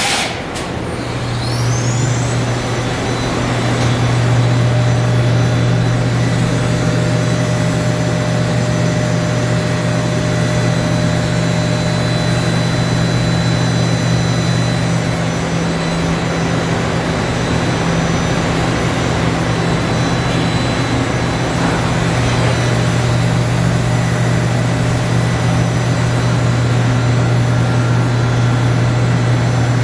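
Hardinge Bridgeport V480 vertical machining center running under power: a steady low machine hum with faint high whines, and a brief rising whine about a second in as something spins up.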